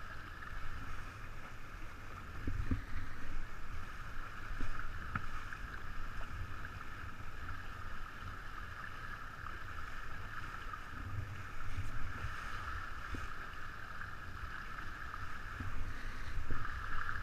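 49er skiff sailing at about ten knots: a steady rush of water along the hull, with gusts of wind buffeting the microphone.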